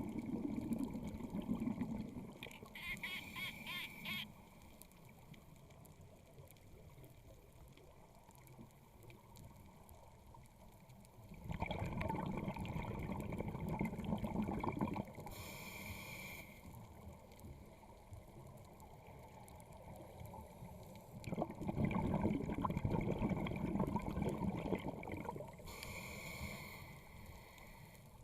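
A scuba diver breathing through a regulator: a short hissing inhale through the demand valve, then a long hold, then a bubbling exhale rumbling out of the exhaust. The cycle comes round about every ten seconds, with three exhales and three inhales.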